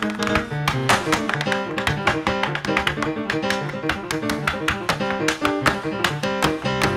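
Tap shoes striking a stage floor in rapid, rhythmic clicks, played against live acoustic piano in a tap-and-piano duo.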